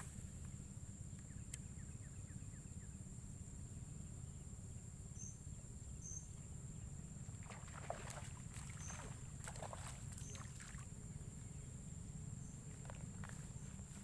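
A hooked snakehead thrashing and splashing at the water's surface for about three seconds, starting about eight seconds in, as it is reeled toward the bank. A steady low rumble runs underneath.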